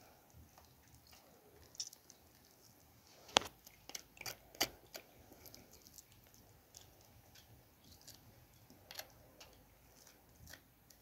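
Small knife cutting and scraping raw chicken feet: scattered faint clicks and crunches, the sharpest a little over three seconds in and a small cluster just after.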